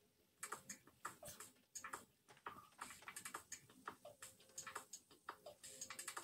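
Faint, irregular clicks and scrapes of a slotted serving spoon knocking against the inside of a cooking pot while food is scooped out, starting about half a second in.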